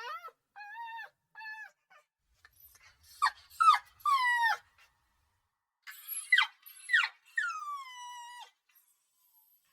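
Puppy whimpering and crying: a few short, high whines, then louder drawn-out cries that slide down in pitch, in two bouts about three and six seconds in.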